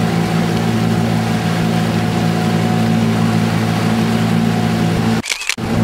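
A boat's engine running at a steady hum. About five seconds in, the sound drops out for a moment, with a short high whistle, then the same hum returns.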